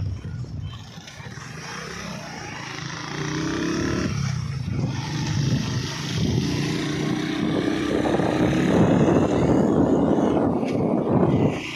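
A vehicle engine running under way, mixed with wind rush on the microphone, growing louder through the second half and dropping suddenly near the end.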